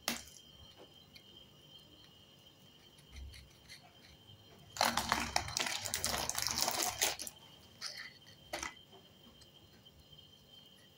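Plastic biscuit wrapper crinkling and rustling as it is handled for about two seconds in the middle, after a single sharp snap at the start and followed by a few small clicks.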